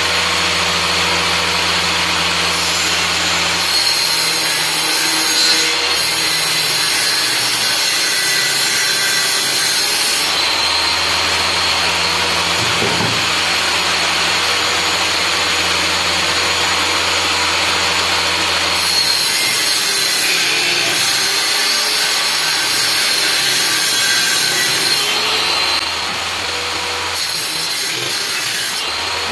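Power tool working wood: a steady motor whine with the continuous hiss of the wood, its low hum shifting a few times as the work changes.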